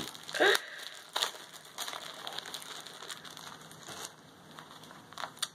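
Clear plastic bag crinkling in short, irregular rustles as it is pulled open and a skein of yarn is taken out.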